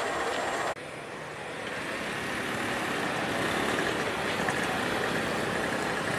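Steady running of an idling diesel locomotive, with a brief dropout just under a second in.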